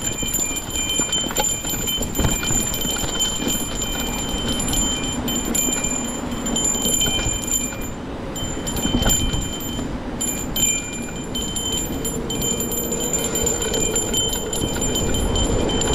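Mountain bike rolling along a dirt trail: rumble from the tyres and wind on the microphone, with scattered clicks and rattles. A steady high ringing buzz runs through it and cuts out briefly twice, around halfway through.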